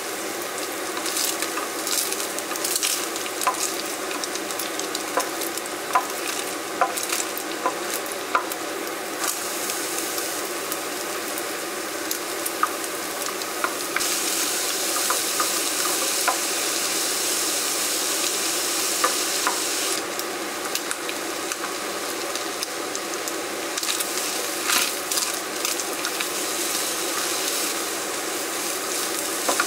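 Minced beef sizzling in a non-stick frying pan, stirred with a wooden spatula that clicks and scrapes against the pan. From about halfway, diced onion and carrot fry beside the beef with a brighter sizzle for several seconds, then everything is stirred together.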